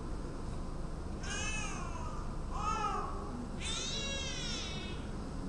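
Newborn baby crying three short "owh" cries, each arching in pitch, the last the longest. This is the "owh" cry taken as the sign that the baby is sleepy.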